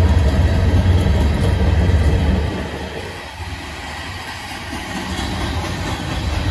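Freight train passing at close range: a strong low diesel rumble from the receding BNSF and Norfolk Southern locomotives, which drops away about two and a half seconds in, leaving the steady roll and clatter of covered hopper cars' wheels on the rails.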